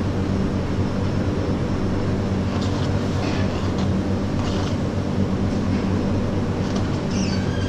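Steady low rumble with a hum, unbroken, like a machine running.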